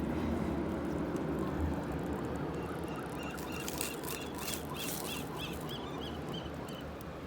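A bird calling a rapid series of about a dozen short, high notes, roughly four a second, starting about two and a half seconds in and stopping near the end. Beneath it runs a steady low rush of surf.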